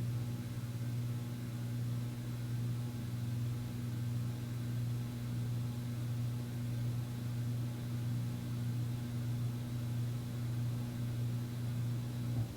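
Regency Marquis ceiling fan running with a steady motor hum, which the owner blames on its flush mounting. The hum stops abruptly near the end.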